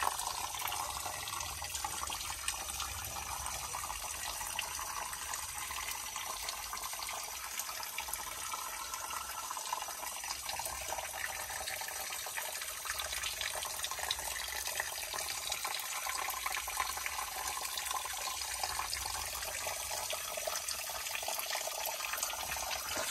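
Small creek water trickling over limestone bedrock: a steady running-water sound.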